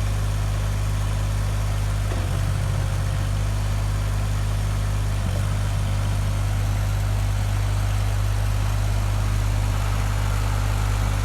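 Farm tractor engine running steadily at a constant speed while the tractor clears snow with a snowblower attachment.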